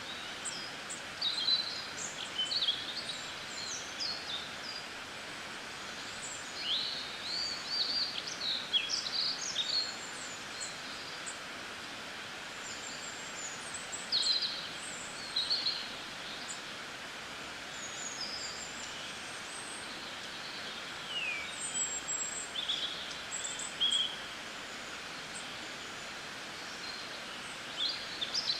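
Small birds chirping in short, high, scattered calls over a steady background hiss.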